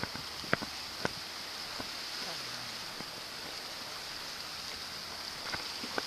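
Small waves washing onto a sandy beach, a steady wash of noise, with a few short sharp clicks in the first two seconds.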